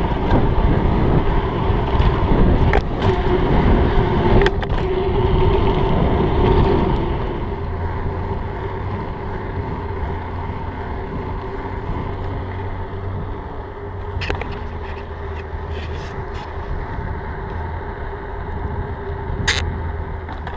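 Mountain bike ridden on pavement: wind on the microphone and tyre rumble, louder for the first seven seconds and then steadier and quieter, with a few sharp clicks and rattles from the bike.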